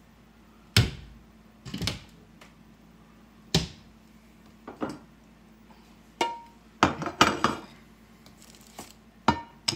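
Irregular knocks and clatters, about a second or two apart with a denser cluster near the end, from objects on a kitchen counter being moved and the recording iPad being handled and repositioned.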